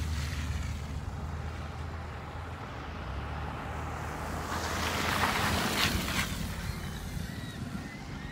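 Road traffic on a slushy street: a vehicle engine runs with a steady low hum, then a car passes about five seconds in with a swelling hiss of tyres through wet slush.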